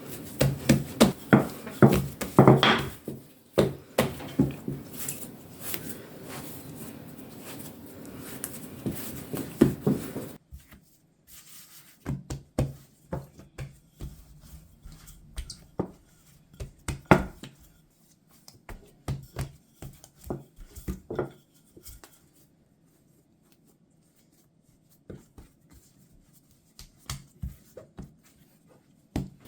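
Irregular taps, knocks and thumps of hands working bread dough on a work surface. They come thick and fast for about the first ten seconds, then more sparsely with quiet pauses.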